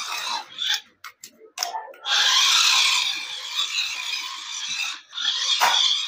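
Toy RC buggy driving in bursts: its small electric motor and gears whirring at speed. A few short clicks just after a second in, then two long runs with a brief stop at about five seconds.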